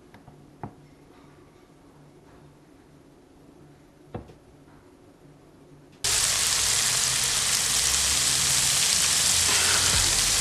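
A few faint clicks and knocks, then, starting suddenly about six seconds in, chicken pieces and bell peppers sizzling loudly in a frying pan over wood-fire embers.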